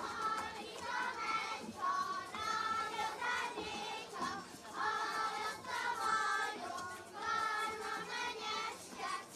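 Group of children singing a Hungarian folk song together, in short phrases.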